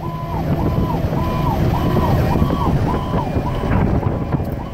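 Fire engine's electronic siren in a fast yelp, rising and falling about twice a second. It is heard from inside the cab over the steady low rumble of the engine and road.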